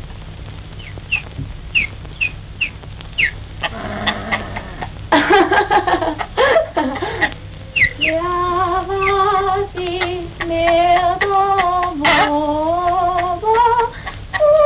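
A run of short, quick rising chirps, then from about eight seconds in a woman singing a slow melody in long held notes with vibrato, sliding between some of them.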